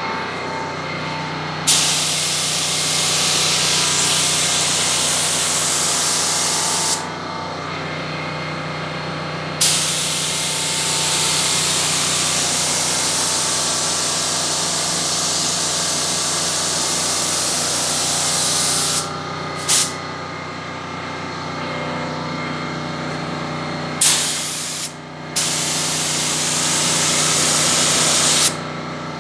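Primer being sprayed onto car door panels in long hissing passes: a stretch of about five seconds, one of about nine, a brief puff, then two more passes near the end, with short breaks between them. A steady motor hum runs underneath.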